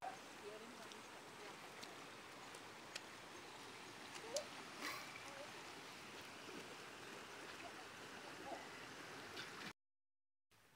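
Swollen, muddy creek running: a faint, steady rush of flowing water, with a few small clicks and short faint chirps. The sound cuts out abruptly near the end.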